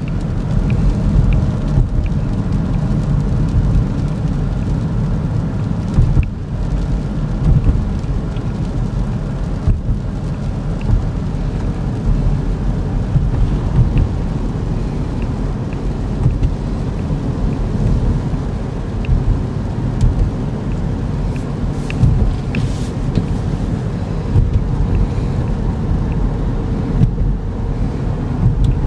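Inside the cabin of a 2014 GMC Terrain driving on a wet road at about 33 mph: a steady low rumble of tyres and the 2.4-litre four-cylinder engine, with rain on the windshield, the wipers running and scattered light clicks.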